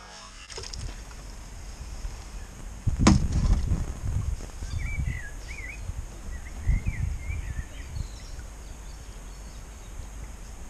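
Wind buffeting the microphone in gusts, with a sharp knock about three seconds in. A small bird gives short chirps in the background through the middle and again near the end.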